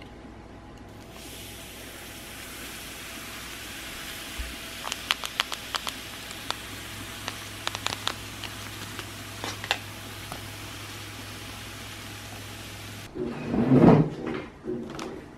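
Steady hiss with scattered crackling pops from bubbles fizzing on a foamy mug of hot tea. A loud handling bump comes near the end.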